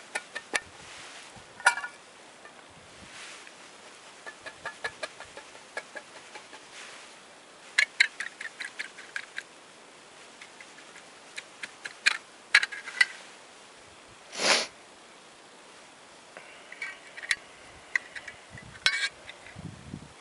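Light, quick taps on an Opinel folding knife whose tip is being driven through a tin can's lid near the rim, cutting it open bit by bit. They come in runs of several small clicks a second, broken by pauses and a few louder single clicks, with one brief rush of noise past the middle.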